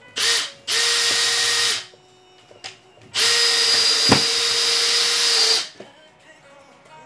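Power drill running in three trigger pulls: a brief blip, a run of about a second, then a longer run of about two and a half seconds at a steady motor pitch, with a sharp click partway through the last run.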